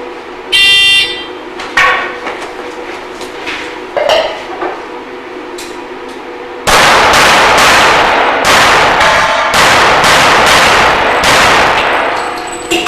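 Pistol shots and steel plates ringing with a metallic clang as they are hit, the first ring about half a second in. Sharp cracks follow near two and four seconds, then a long, loud, dense stretch of overlapping noise from about seven seconds in, with more plates ringing within it.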